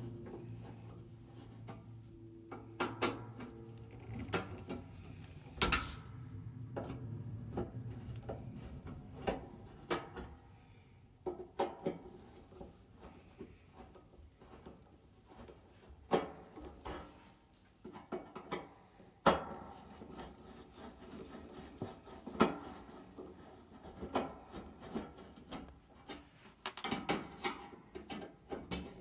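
Irregular clicks, knocks and rubbing of hard objects being handled and set down, with a faint low hum that fades out over the first few seconds.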